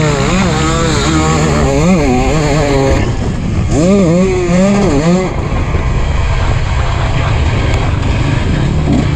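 A 2023 KTM 250 SX's single-cylinder two-stroke engine on a motocross lap, its pitch rising and falling again and again as the rider works the throttle and gears. After about five seconds it settles into a steadier, rougher sound, heavy with wind on the helmet camera.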